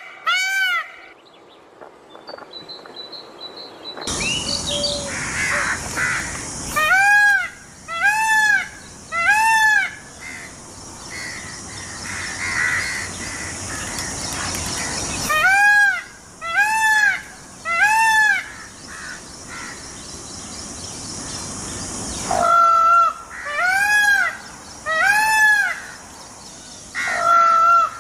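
Indian peafowl (peacock) calling: loud, rising-and-falling calls about a second apart, in three groups of about four with quieter gaps between, and another group starting near the end. A steady hiss runs beneath.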